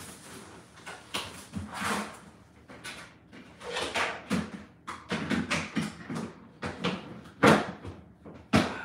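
A plastic trash bag crinkling and rustling as it is handled in a kitchen trash can, with a string of sudden knocks and clatters from the bin. The sharpest knock comes about seven and a half seconds in.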